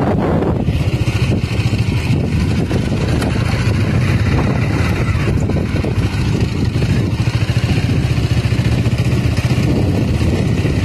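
Motorcycle engine running steadily while the bike is ridden along a dirt road, heard from on board.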